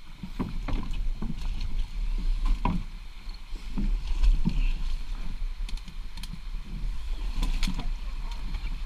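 Canoe being hauled up over a beaver dam: irregular knocks and scrapes of sticks and branches against the hull, over a steady low rumble.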